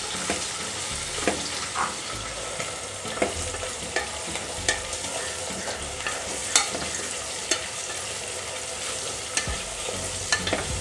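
Sliced onions sizzling in hot oil and ghee in an aluminium pressure cooker, stirred with a wooden spatula that knocks and scrapes against the pot at irregular moments.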